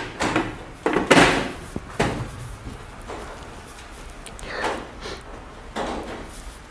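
A handful of separate clunks and knocks from metal motor-starter cabinets being handled, the loudest in the first two seconds and a few softer ones after.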